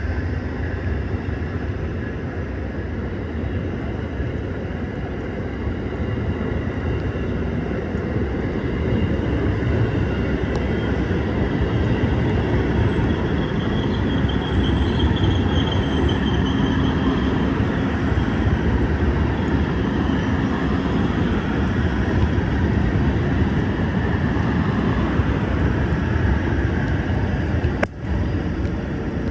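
Amtrak passenger train rolling past in heavy rain: a steady rumble with rain hiss, muffled by the waterproof phone case it is recorded through. A brief drop about 28 seconds in, then the same sound resumes.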